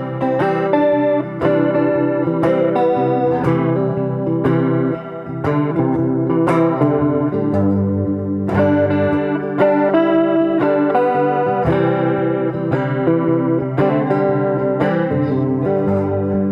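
Gretsch Electromatic hollow-body electric guitar played through a Deadbeat Sound Wet Dreams chorus pedal into a small tube amp, with the pedal's speed turned up. Notes and chords are picked one after another and ring on with the chorus effect.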